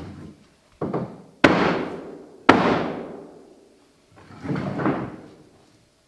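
Hardwood flooring installation work: knocks and thuds of boards, with two loud, sharp bangs about a second and a half in and again a second later, each ringing on as it fades.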